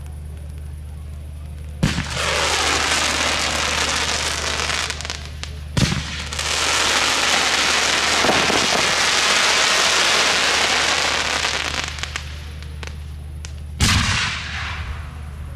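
Display fireworks going off: three sharp bangs, about two, six and fourteen seconds in, each followed by a long, dense crackling hiss that fades over several seconds.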